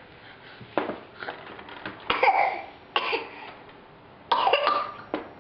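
Several short, sharp vocal bursts from a 14-month-old toddler, the loudest about two seconds in and again a little past four seconds.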